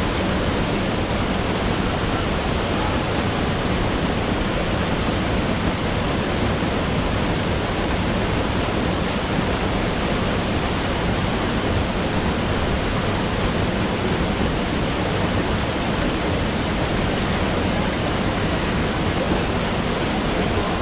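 A waterfall rushing: a steady, unbroken noise of falling water that stays at the same level throughout.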